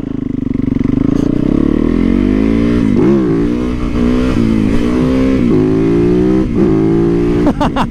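Yamaha WR250R supermoto's single-cylinder engine revving hard under acceleration as the rider pulls a wheelie. Its pitch climbs over the first few seconds, then drops and climbs again several times as the throttle is worked.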